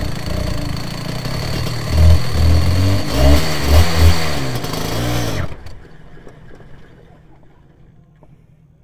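A 250cc twin-cylinder two-stroke superkart engine, freshly rebuilt and being run in, runs at low revs. Around the middle it is blipped about five times in quick succession, the revs rising and falling. The engine sound then stops abruptly about five and a half seconds in.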